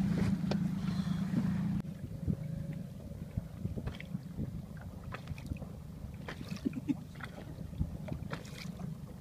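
A boat engine's low steady hum, which drops sharply in level about two seconds in and runs on weaker, under scattered crackles of wind and water on the microphone.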